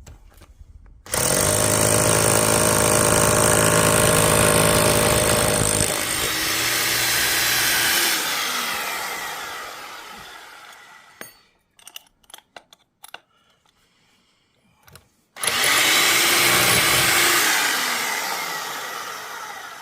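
A handheld electric power tool, switched on twice. Each time its motor starts abruptly and runs at full speed for a few seconds, then is released and winds down with a falling whine. The first run lasts about five seconds, and the second starts about fifteen seconds in.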